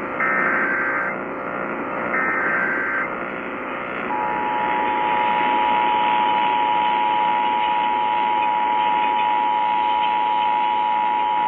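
Emergency Alert System test over AM radio. Two screeching digital header bursts, about a second each, come a second apart. Then, about four seconds in, the steady two-tone EAS attention signal begins and holds. Radio static hisses underneath throughout.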